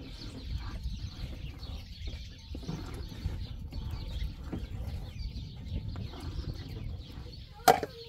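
Ladle stirring in a metal pot over a wood fire, with chickens clucking in the background. Near the end, a single sharp metallic clank rings out.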